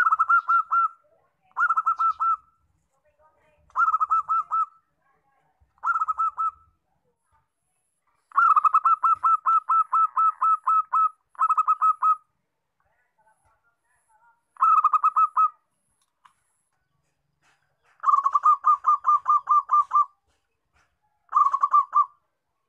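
Zebra dove (perkutut) song: about nine bouts of quick staccato cooing notes at one steady pitch. Each bout lasts from under a second to nearly three seconds, with short silences between.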